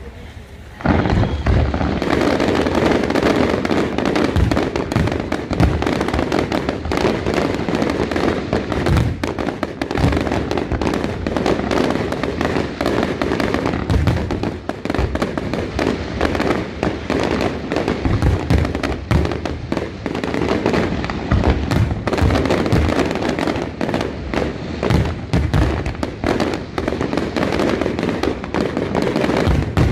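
Aerial fireworks display: a dense, continuous barrage of shell bursts and crackling that starts abruptly about a second in, with booming reports scattered through it.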